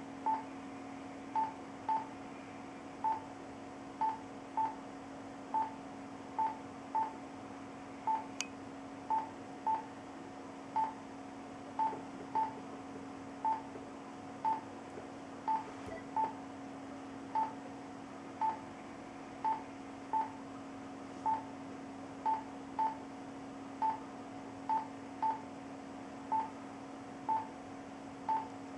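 Patient heart monitor beeping once per heartbeat: short, same-pitched beeps at about 60 to 70 a minute, over a steady low hum. The beeps come at irregular intervals, often two close together: early beats in a heart rhythm whose trace shows some beats without P waves.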